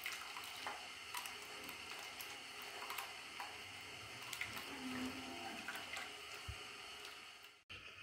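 Faint wet squishing of ground coconut and rice paste squeezed by hand in a plastic strainer to press out the coconut milk, with small scattered clicks. It cuts off suddenly near the end.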